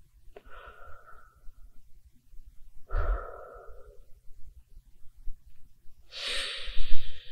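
A person breathing audibly through the mouth: three separate breaths a few seconds apart, the third the loudest and hissiest.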